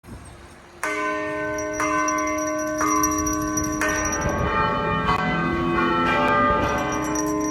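Bells ringing. A bell is struck about once a second, each stroke ringing on. From about halfway through the strokes overlap, with a lower-pitched bell joining in.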